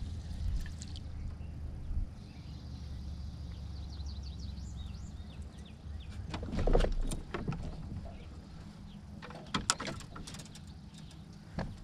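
Bow-mounted electric trolling motor humming steadily. A bird chirps a quick series a few seconds in, a dull thump about seven seconds in is the loudest sound, and a few sharp clicks come near the end.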